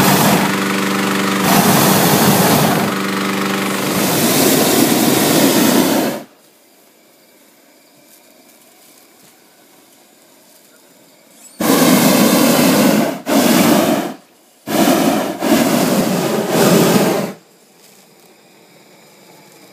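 Hot air balloon's propane burner firing into the envelope to heat the cold-inflated balloon: long loud blasts for about the first six seconds with short breaks between them, then, after about five seconds of quiet, four shorter blasts.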